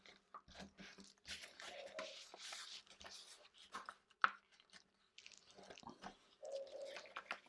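Bone folder rubbing along a fold in cardstock to sharpen the crease: a faint scratchy scraping in two stretches of strokes, with a sharp click about four seconds in.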